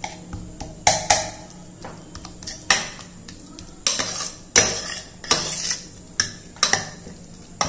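Stainless steel spoon scraping and clinking against the inside of a steel pressure cooker as cooked barley and green gram are mashed and stirred, with a stroke roughly every second at uneven spacing.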